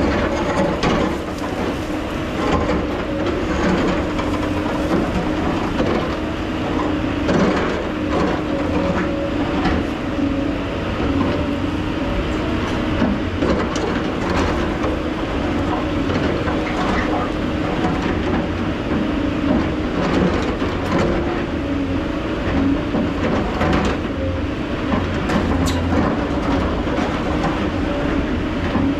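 A JCB tracked excavator's diesel engine running steadily under load with a constant hum. Frequent knocks and clatters come from the steel bucket scraping down an earth cliff face and from dirt and stones tumbling down.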